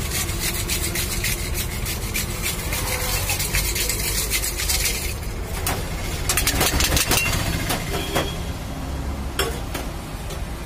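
Rapid metallic clinking and rattling of a steel tumbler, glasses and ice being handled while a mojito is mixed, with a few louder clanks about six to seven seconds in, over a steady low rumble of road traffic.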